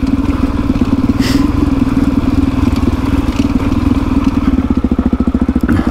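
Dirt bike engine running at idle with an even, fast pulsing beat, with a short rattle about a second in.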